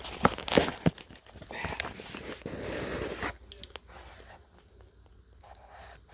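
Packaging around a set of new lifters being torn open and handled. Sharp clicks and knocks in the first second give way to a stretch of rustling and tearing, then quieter handling noises.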